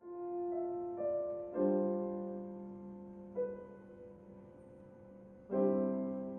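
Piano playing a slow phrase of single notes and held chords, each left to ring and fade. It starts suddenly, with louder chords struck about a second and a half in and again near the end.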